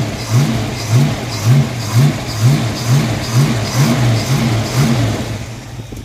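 1982 Ford Mustang GT's 5.0-litre V8 running on freshly fitted headers, its note rising and falling in a steady rhythm about twice a second. The loud exhaust knock from the cracked header tube is largely gone.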